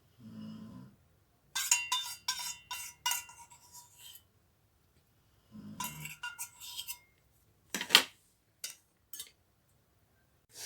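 A metal spoon clinking against a dish: two quick runs of light ringing clinks, then one sharper knock and a couple of faint taps. Two brief low vocal murmurs come in between.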